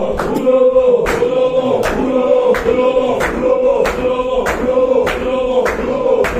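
A group of men chanting zikr in unison, repeating a short phrase over and over. The chant is kept in time by sharp rhythmic beats, about one every 0.7 s.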